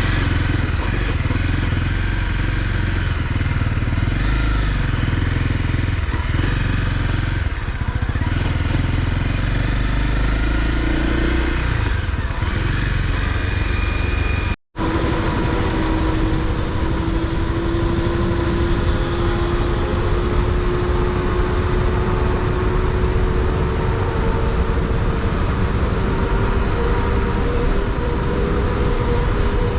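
Honda CRF250L single-cylinder engine running under way, over a heavy low rumble. The sound breaks off abruptly about halfway through, then the engine holds a steady note that slowly rises in pitch.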